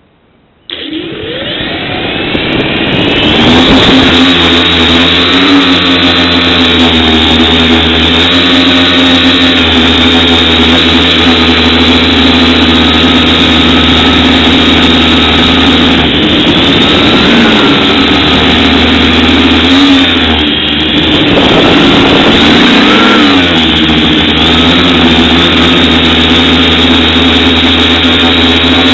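FPV quadcopter's electric motors and propellers spinning up sharply under a second in, then running loud through the flight, their whine rising and falling in pitch with the throttle. Heard up close through the quad's own camera.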